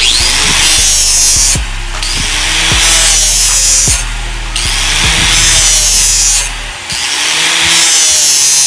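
Ryobi angle grinder sharpening the edge of a steel lawn mower blade, a loud high hiss of grinding. It comes in long passes that ease off briefly about every two seconds as the grinder is swept along the edge.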